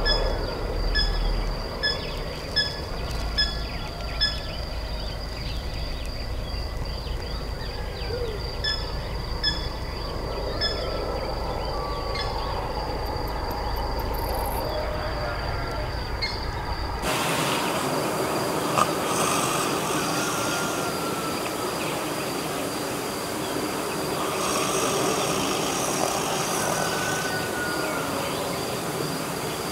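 Night ambience: insects chirping in a regular rhythm, about two chirps a second, over a low rumble. About halfway through, the rumble gives way to a louder, even hiss, and a high insect trill carries on.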